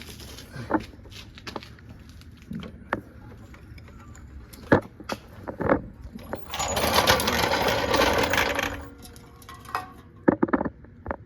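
Scattered clicks and metal knocks from work on a truck's underside. A little past the middle comes a loud, steady mechanical whirr lasting about two seconds.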